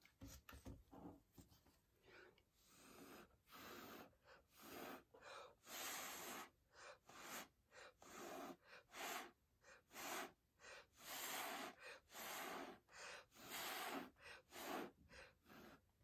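Short puffs of compressed air from an air compressor's blow nozzle, each a quick hiss, going on and off many times at an uneven pace as the air pushes wet acrylic paint down a canvas.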